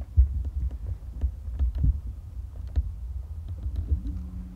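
Uneven low rumbling and thumping with scattered light clicks. A steady low hum comes in near the end.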